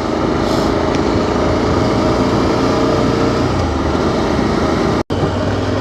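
KTM 1290 Super Adventure's V-twin engine running under way, rising over the first second and then holding a steady pitch. Near the end the sound cuts out completely for a moment.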